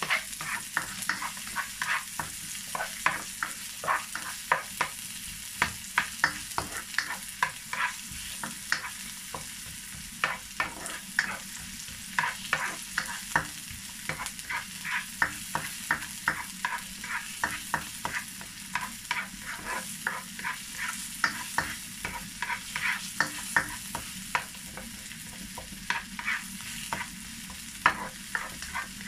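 Diced onion and garlic sizzling in a little oil in a nonstick wok, with a plastic spatula scraping and knocking against the pan in quick, irregular strokes as it is stirred over a steady hiss.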